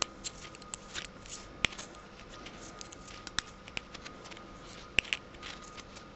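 Metal camera filter step-up rings being handled and screwed together: a scatter of small clicks and ticks, with two sharper clicks about a second and a half in and near five seconds.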